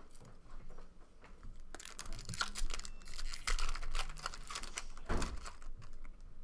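Glossy Topps Chrome trading cards being handled and slid against one another, with scattered rustling and light clicks.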